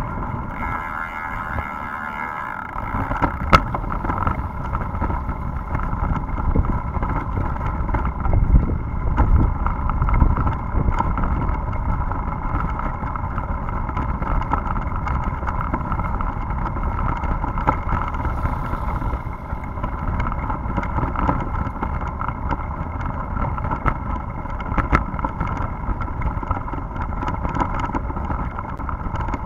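Wind buffeting the microphone over the rumble of a tyre rolling on wet road and cobblestones, with a steady high whine underneath and a few sharp clicks.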